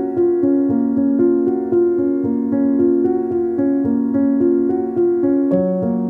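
Background piano music, held notes changing in steady succession.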